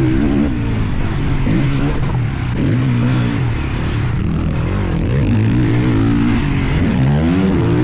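Two-stroke motocross bike engine ridden hard, revving up and falling back again and again with throttle and gear changes.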